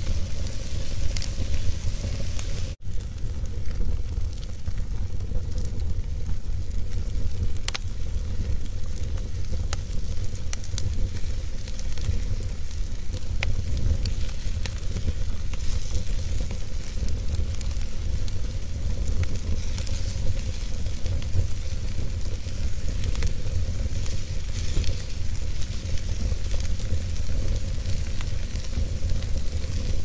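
Wood fire burning in a fireplace: a steady low rumble of flames with scattered small crackles and pops. The sound drops out for an instant about three seconds in.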